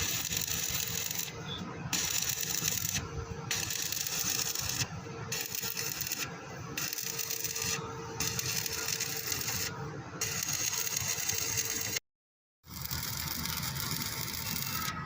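Welding arc on a pipe: a steady crackling hiss, with a faint steady hum underneath. It runs in several short cut-together stretches and breaks off into a brief silence near the end.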